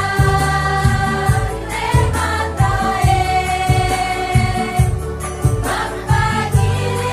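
Women's choir singing long held notes over instrumental accompaniment with a steady beat.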